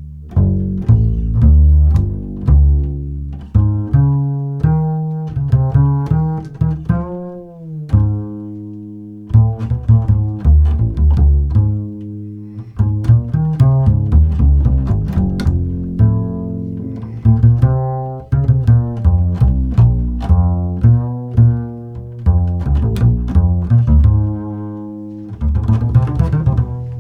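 Jazz double bass solo played pizzicato: single plucked notes, each struck and fading, with a note sliding in pitch about seven seconds in.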